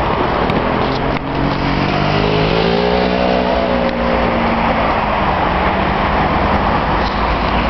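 Road traffic: a car passes close by, its engine tone rising and then falling over a few seconds, over a steady rush of traffic noise.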